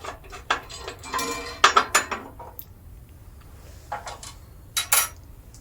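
Scattered metallic clinks and knocks of tools and small metal parts as the lower blade guide under a bandsaw table is undone. The densest cluster comes in the first two seconds, with a few single clicks later on.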